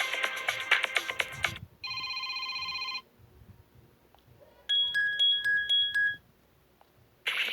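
Xiaomi phone ringtones and alert tones playing one after another. A busy melodic ringtone ends about a second and a half in and is followed by a buzzing electronic tone about a second long. After a pause comes a short run of high beeping pings, and another ringtone starts near the end.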